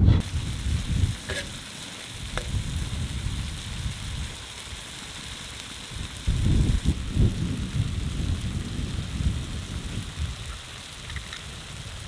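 Tomato and pepper stew sizzling and simmering in a large wok-shaped steel pan over a fire, a steady hiss with a few faint scraping clicks. Low wind rumble on the microphone comes and goes, loudest a little past halfway.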